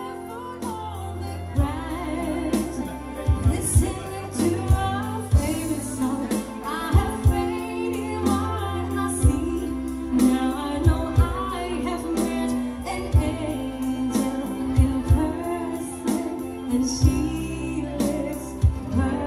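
A woman singing live into a microphone, with instrumental accompaniment that has a steady rhythmic beat and a bass line under her voice.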